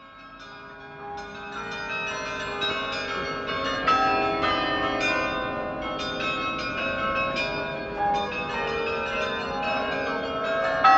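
Atkinsons carillon, a set of tuned bronze bells played from a lever console, ringing out a tune. Many notes are struck in quick succession and in chords, their ringing overlapping. The sound fades in over the first couple of seconds.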